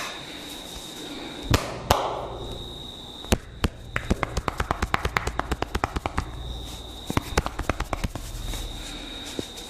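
Sharp cracks and slaps of hands working a person's head and body in a percussive barber massage: two loud single cracks, then a fast run of about seven strikes a second that stops near the end.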